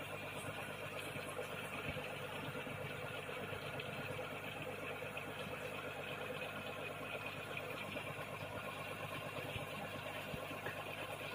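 Steady mechanical hum of an aquarium air pump running, with air bubbling through the tank water.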